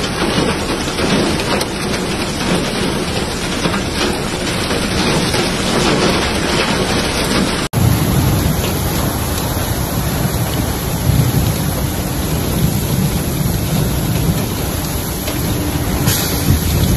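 Heavy rain in a thunderstorm, a steady rushing roar of rain and storm noise. About eight seconds in it cuts abruptly to a heavier downpour with a deep rumble underneath.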